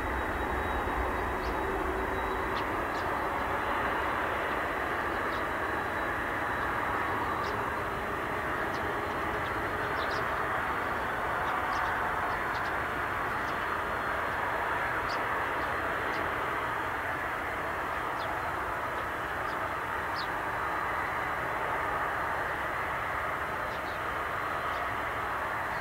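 Airbus A380's four Rolls-Royce Trent 970 turbofans heard from well ahead on final approach: a steady, even jet rush that holds level, with faint brief high chirps scattered through it.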